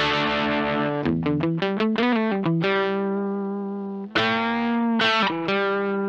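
Greg Bennett Royale RL-1 f-hole electric guitar being played: a held chord rings, then a quick run of single notes starts about a second in, followed by a long sustained note. About four seconds in a new chord is struck and rings with a wavering pitch, then a few more notes are picked near the end.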